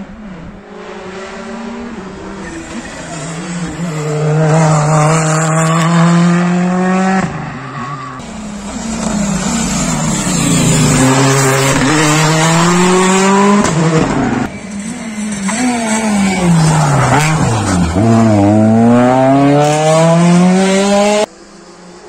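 Rally car engines revving hard on a tarmac stage, across several passes with abrupt cuts between them. The pitch climbs steeply under acceleration, drops away on braking into corners and climbs again.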